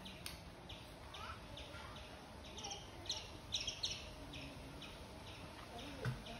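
A bird chirping faintly, short high chirps repeating two or three times a second, with a soft thump near the end.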